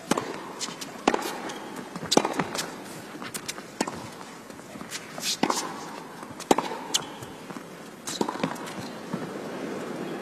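Tennis rally: a serve and then the ball struck back and forth by rackets and bouncing on the indoor court, a sharp pock roughly every second over a steady arena hum.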